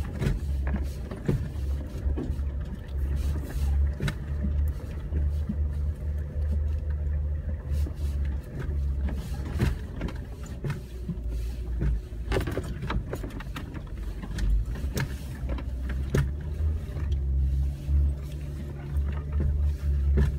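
Jeep Wrangler being driven along a snow-covered gravel road, heard from inside the cab: a continuous low engine and tyre rumble, broken by frequent short knocks and rattles from bumps.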